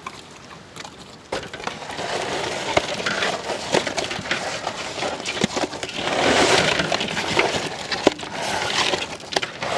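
Salt-coated pearl spot fish being rubbed and handled in an aluminium basin: gritty crunching of coarse salt, with many small knocks and clinks against the metal tub.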